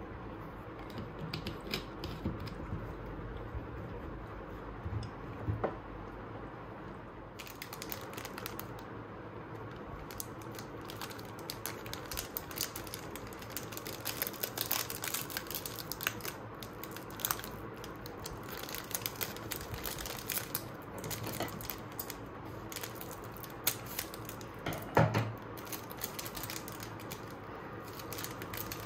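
Plastic snack wrapper of a Jack n Jill Dewberry cookie packet crinkling and rustling as it is handled and pulled open, with many small crackles and one louder knock near the end. Early on, quieter clicks of a drink bottle and its cap being handled.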